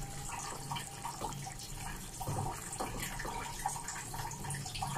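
Chicken pieces simmering in their yogurt-and-black-pepper liquid in a pan, bubbling with many small crackles, while a spatula moves the pieces.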